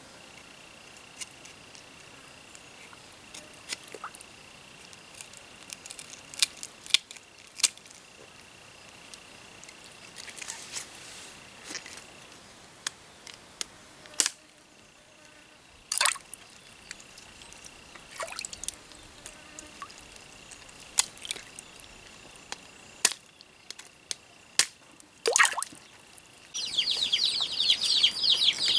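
Quiet forest ambience with scattered sharp clicks, a faint steady high-pitched whine, and two quick downward-sliding whistles. Near the end a loud, fast, high buzzing trill starts and keeps going.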